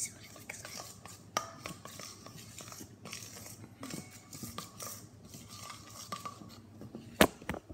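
A spoon stirring glue and shaving-cream slime mixture in a stainless steel mixing bowl, with scattered clinks and scrapes of metal on metal. There are two sharper knocks near the end.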